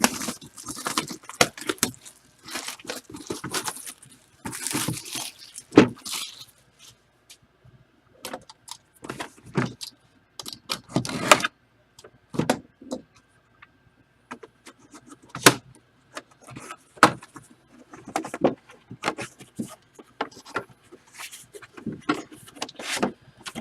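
Irregular crinkling, rustling and clicking of packaging being handled as a boxed mini football helmet is unpacked, with a few sharper knocks.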